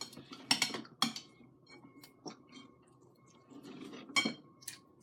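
Scattered short clicks and crinkles of small plastic jelly packets being handled and eaten from, over a faint steady tone.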